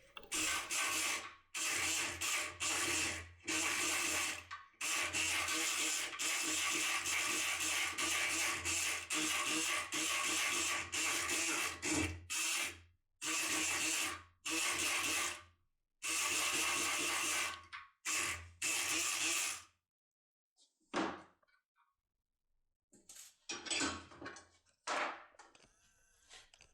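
Multipick Kronos electric pick gun running in repeated bursts of one to two seconds as it picks a lock. The bursts stop about 20 seconds in, and a few faint clicks follow.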